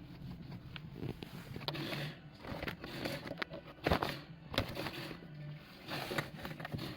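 Abnormal steering noise from a Daihatsu Hijet Truck 4WD: irregular clicks, knocks and scraping, the loudest knock about four seconds in, over a low steady hum.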